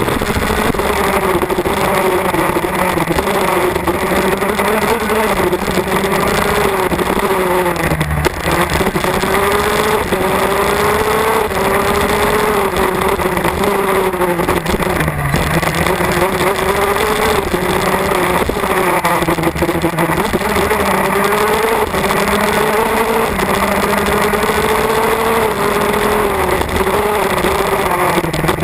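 MAC Minarelli 125cc two-stroke KZ shifter kart engine, heard from on board the kart at racing speed, its pitch repeatedly climbing as it revs out and falling back through the corners. The pitch drops sharply with a short knock about eight and fifteen seconds in.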